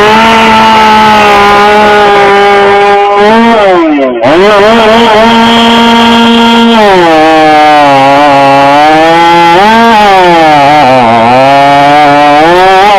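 Two-stroke chainsaw running at full throttle, dipping briefly about four seconds in, then dropping in pitch and wavering under load as it cuts through a log, revving back up near the end.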